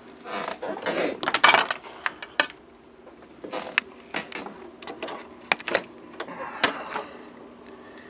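Scattered clicks and rattles of metal BNC connectors and coaxial cables being unplugged and handled, over a faint steady hum.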